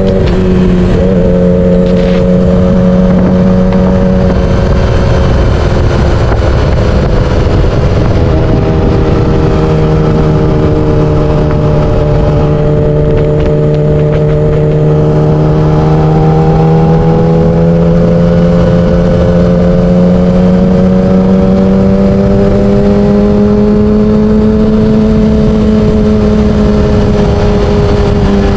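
Yamaha R6 sportbike's 600cc inline-four engine running at a steady cruise, its pitch easing down a few seconds in, slowly climbing for most of the stretch and dropping again near the end. Heavy wind buffeting on the camera's built-in microphone runs underneath.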